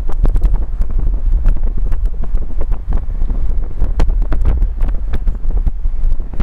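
Wind buffeting the microphone from a moving car, a loud low rumble, with many scattered sharp ticks throughout.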